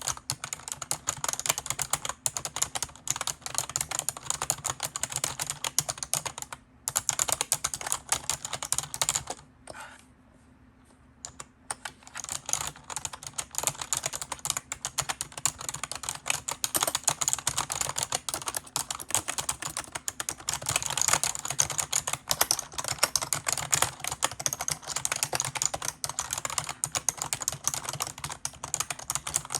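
Fast typing on a keyboard: a dense, rapid run of key clicks that pauses briefly twice, once for about two seconds around ten seconds in.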